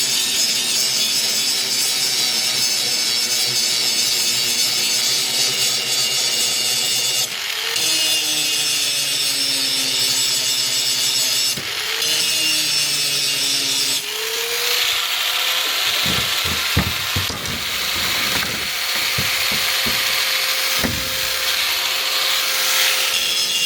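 A power grinder grinding an axe blade: a steady hiss of metal on the abrasive over the motor's hum. The hum's pitch shifts, and there is a series of knocks in the second half.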